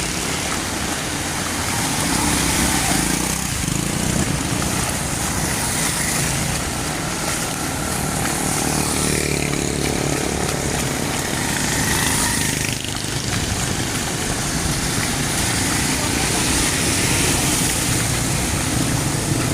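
Heavy rain falling steadily, with motor traffic running along the wet street.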